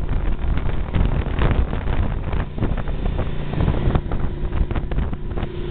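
Wind rushing and buffeting over the microphone of a touring motorcycle ridden at speed in heavy rain, with a constant low rumble of engine and wet-road noise underneath.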